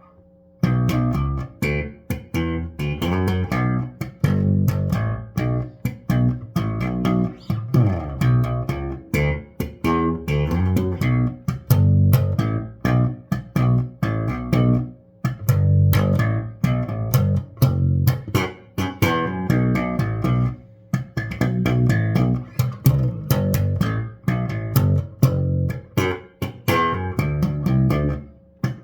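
Electric bass guitar played slap-style: low notes with sharp percussive slaps and pops in a busy funk rhythm, with a few short breaks in the phrasing.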